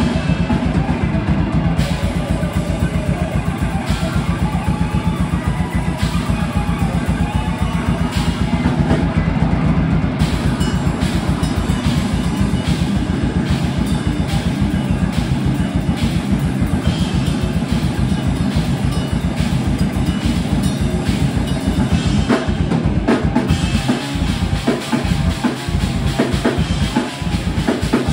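A band playing live, electric guitar over a drum kit with very fast, dense kick-drum strokes. In the last few seconds the playing turns choppy, with stop-start hits and short gaps.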